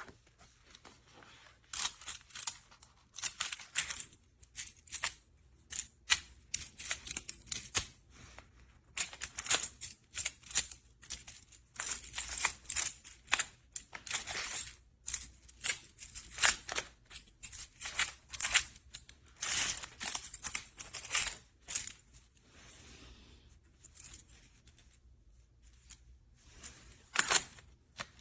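Small plastic magnetic building blocks clicking and clacking against each other as they are handled and snapped together, in irregular clusters of sharp clicks that thin out after about 22 seconds.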